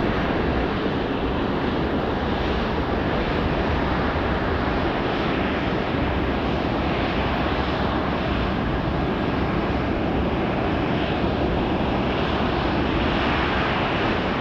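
Jet engines of an Airbus A380 running steadily as the airliner rolls along the runway after landing: a loud, even rushing roar that does not rise or fall.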